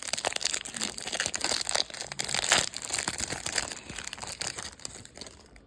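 Crinkling of trading card pack wrappers being handled, dense and crackly at first, then thinning out and fading near the end.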